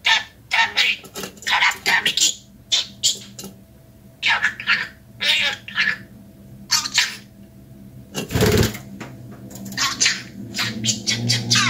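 Pet budgerigar chattering: a quick run of short, high-pitched chirps and mimicked Japanese words such as "Ryoma" and "nan ya". A short loud rustle comes about eight seconds in, and background music starts near the end.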